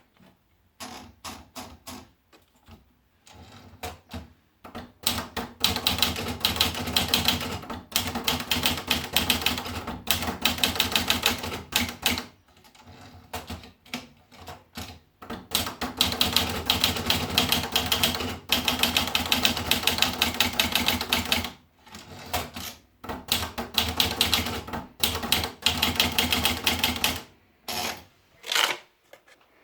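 Olivetti Lettera 25 portable manual typewriter being typed on: long runs of rapid key strikes, a few seconds each, separated by short pauses, with slower scattered strokes at the start and a few separate strokes near the end.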